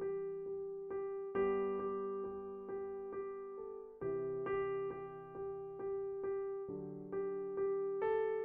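Intro music on an electric piano: a gentle repeated chord pattern, about three notes a second, moving through a few chord changes.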